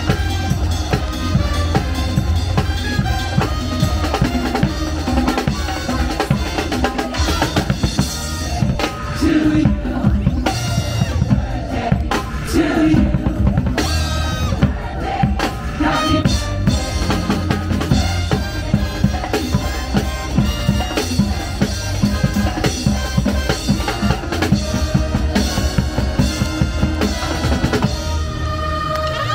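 Show music with a drum kit, bass drum and snare keeping a steady, driving beat.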